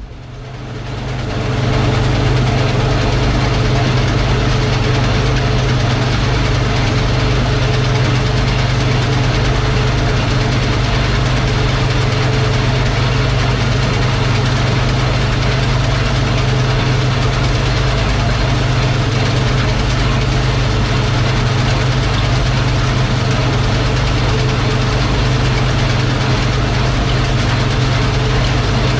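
Combine harvester running steadily while harvesting wheat: a loud, even machine drone with a strong low hum. It swells over the first couple of seconds, then holds steady.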